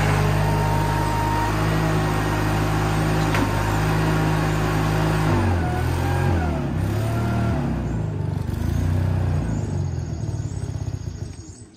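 Case 1816C skid steer's engine running steadily, then, about five seconds in, its pitch starts rising and falling as the machine drives with its drive clutch engaged. The sound fades away near the end.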